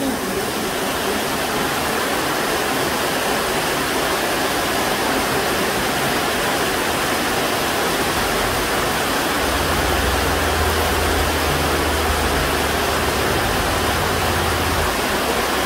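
Heavy rain falling steadily, an even hiss. A low rumble joins it from about ten seconds in until near the end.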